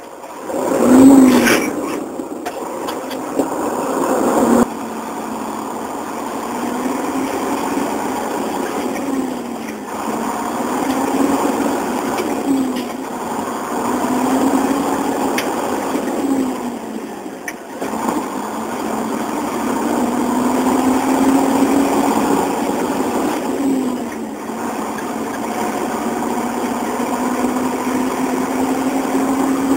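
Truck engine pulling up through the gears: its pitch climbs, drops at each shift and climbs again, roughly every two seconds, ending in one long steady climb. About a second in there is a loud, rough burst.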